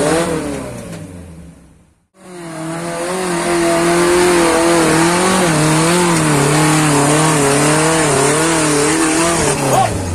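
Off-road 4x4 jeep engine working hard under load as it climbs over loose rocks, its revs wavering up and down, with a brief dip and rise near the end. About two seconds in, the sound fades out to a short gap before the engine comes in loud.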